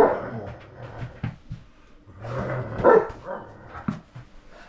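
German Shepherd barking at a stuffed toy tiger: a loud bark at the start, then a cluster of barks about two to three seconds in and another near the end.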